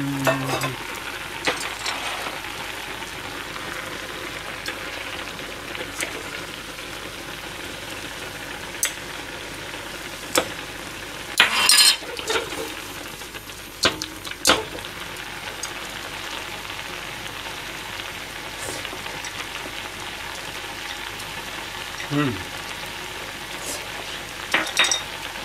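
Tofu and beaten egg simmering in an aluminium saucepan over a gas flame: a steady bubbling sizzle, with a few sharp clicks and knocks. The loudest is a metal clatter about halfway through, when a metal ladle is set down beside the stove.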